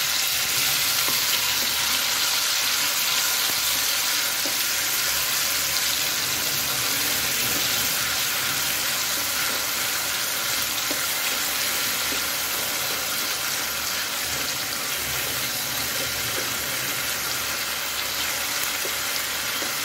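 Ginger-garlic and green chilli paste frying in hot oil, a steady sizzle, with a spatula stirring it around the pan.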